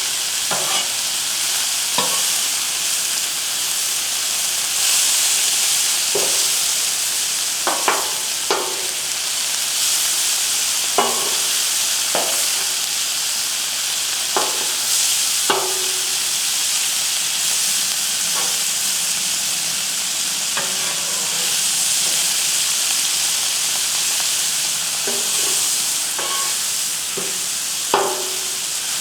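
Sliced vegetables sizzling steadily as they sauté on a Blackstone flat-top griddle. A spatula scrapes and taps against the griddle now and then, at irregular intervals.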